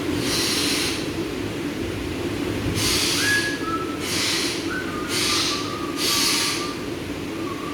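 About six short, harsh hissing bursts, roughly half a second each, at uneven intervals over a steady low hum, with a few faint thin whistle-like tones in the middle.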